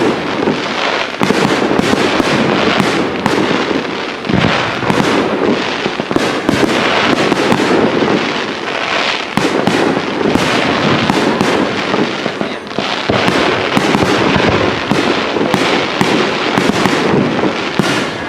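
Fireworks display: a dense, continuous barrage of bursts and crackling with no pause.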